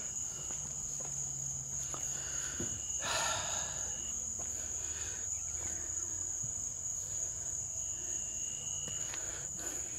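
Steady high-pitched trilling of night insects in the grass, one unbroken chorus. About three seconds in there is a brief rustle.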